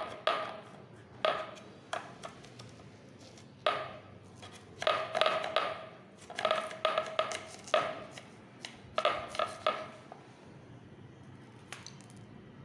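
Serrated kitchen knife cutting and scraping through a bitter gourd on a wooden cutting board, in short bursts of quick strokes with a ringing edge, the longest runs near the middle.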